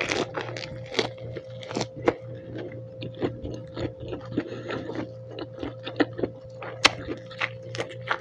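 Close-miked chewing of a lettuce wrap of dried pork adobo: irregular crunches of fresh lettuce and wet mouth clicks, several a second. A steady low hum runs underneath.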